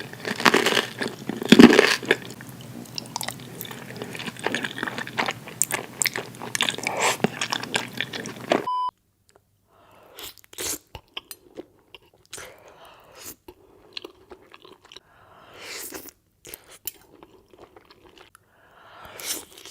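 Close-miked ASMR eating sounds: a person chewing and biting a mouthful of spaghetti. About nine seconds in, a cut changes the sound to a quieter background with sparser, separate mouth clicks and chews.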